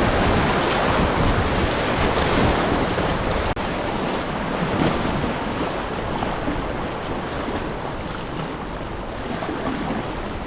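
Whitewater of a low-flow river rapid rushing and splashing around a kayak, with wind buffeting the microphone. The sound drops out for an instant about three and a half seconds in.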